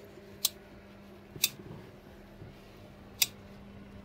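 Three sharp clicks, spaced one to two seconds apart, as a folded RadMini fat-tyre electric bike is pushed and shifted into a car's cargo area, over a faint steady hum.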